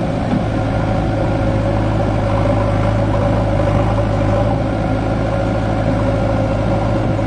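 Diesel engine of a JCB backhoe loader running steadily while its backhoe arm digs, with a steady higher-pitched whine over the engine note.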